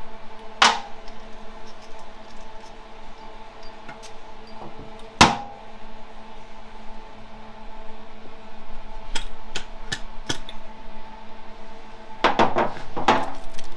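Metal transmission parts and hand tools clinking and knocking during the teardown of a 4L65E automatic transmission: a sharp knock about five seconds in, scattered light ticks, and a quick run of clatter near the end, over a steady shop hum.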